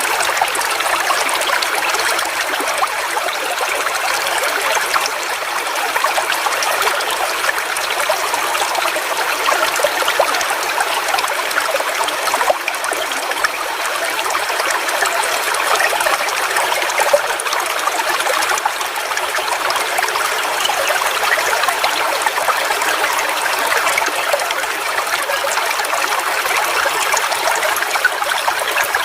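A small forest waterfall running steadily: a constant splashing hiss of falling and flowing water, with little deep rumble.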